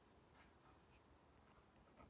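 Apple Pencil Pro tip stroking and tapping faintly on an iPad screen with a paper-like screen protector: a few short, scratchy strokes about half a second apart.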